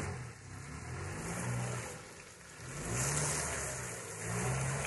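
Renault Duster 4x4 engine revving up and down in about four surges as the SUV crawls through deep mud, its tyres churning the mud.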